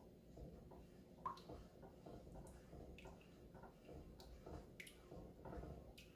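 Faint, irregular squishes and light clicks of a silicone spatula stirring thick mashed purple yam in a nonstick pan.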